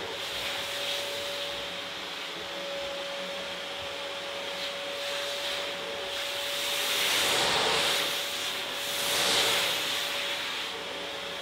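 Canister vacuum cleaner running with a steady whine while its brush nozzle rubs along a wooden banister. The sucking and rubbing swell louder twice in the second half.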